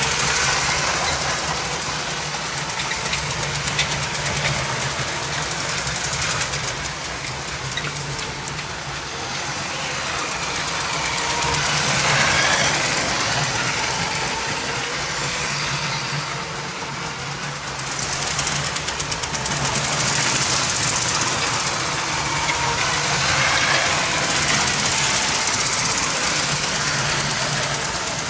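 Several LEGO electric trains, among them the 7750 steam engine with its 12-volt motor, running on grey plastic track: a steady motor whir with a dense rattle of wheels and coaches, swelling and fading as the trains pass close by.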